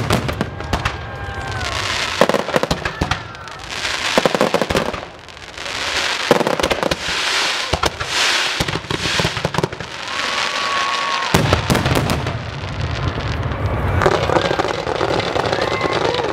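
Fireworks display: a run of sharp bangs from bursting aerial shells mixed with dense crackling, with a brief lull about five seconds in.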